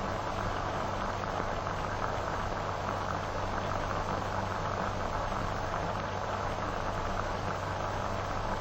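Steady hiss and crackle of an old optical film soundtrack, with a faint low hum underneath.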